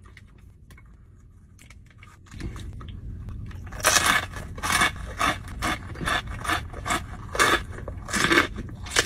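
A person biting into and chewing a fresh red Fresno chili pepper close to the microphone: loud crunches about two to three a second, starting about four seconds in, with softer mouth and handling noise just before.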